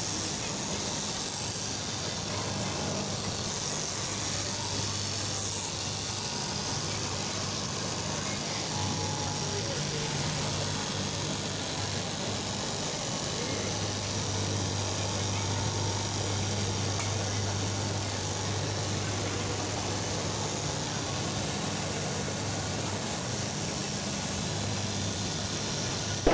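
Electric straight-knife cloth cutting machine running with a steady hum as its vertical reciprocating blade cuts through a thick stack of fabric plies, over the even machine noise of a garment cutting room.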